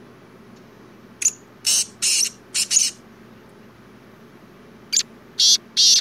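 Male black francolin calling: a phrase of about five scratchy, high-pitched notes about a second in, and a second phrase starting near the end.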